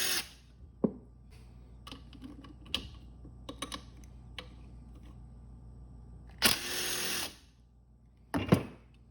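Scattered clicks and light knocks of tools on metal motor parts, with a power drill running for about a second roughly two thirds of the way in and a sharp knock near the end.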